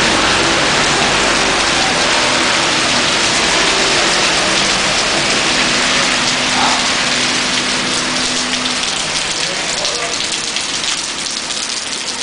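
Heavy rain falling on a wet street and pavement, a steady loud hiss. In the last few seconds sharper ticks of drops landing close by stand out.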